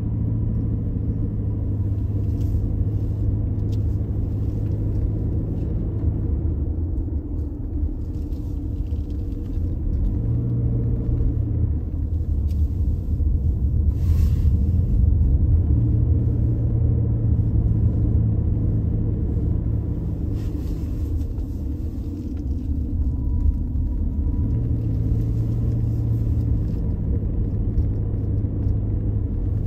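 Car driving uphill, heard from inside: a steady low engine and road rumble, with the engine's hum fading and returning several times.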